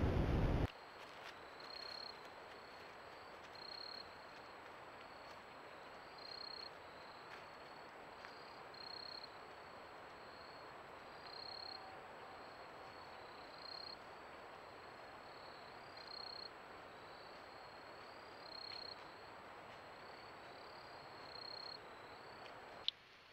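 Insects chirping in short, rapid, high-pitched pulses, swelling in louder bouts about every two and a half seconds, over the steady hiss of a trail camera's microphone. A single sharp click comes near the end.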